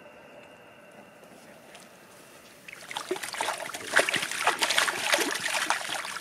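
Water splashing and sloshing in the shallow lake margin as a large mirror carp is released from a sling and kicks away. It starts about three seconds in after a quiet start, with many quick splashes.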